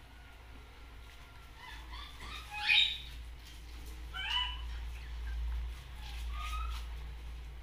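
Baby monkey giving a few short, high, rising calls while suckling from a bottle. The loudest call comes nearly three seconds in, over a steady low hum.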